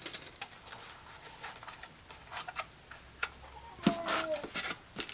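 Scattered light clicks and taps of a doll being handled, and about four seconds in a short whine from a dog.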